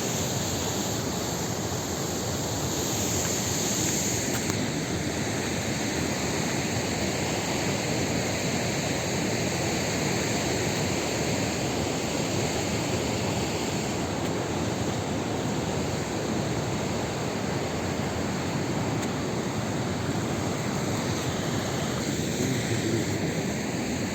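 Steady rushing noise with no distinct events and no change in level.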